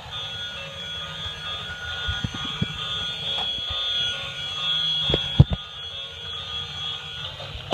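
Battery-powered Thomas the Tank Engine toy running along a wooden floor: its small electric motor and gears whine steadily over the rumble of its plastic wheels. Two sharp knocks come about five seconds in.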